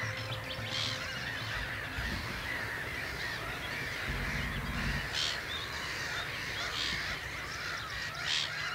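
A large mixed flock of wading birds and gulls calling at once: a dense, continuous chatter of many overlapping calls.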